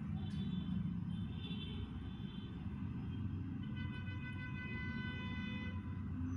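Steady low background rumble with a sustained, steady-pitched tone sounding over it three times, the longest for about two seconds past the middle.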